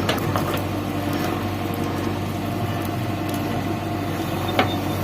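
Diesel engine of a JCB 3DX backhoe loader running steadily, with a few sharp clicks or knocks, the loudest about four and a half seconds in.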